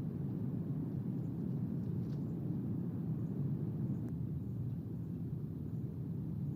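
Wind buffeting the nest-cam microphone: a steady low rumble.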